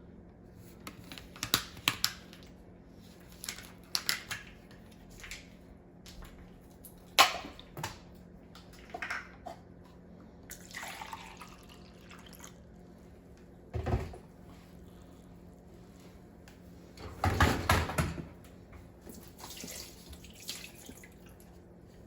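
Water splashing and dripping in a kitchen sink, with scattered clinks and clatters of parts being handled, over a steady low hum.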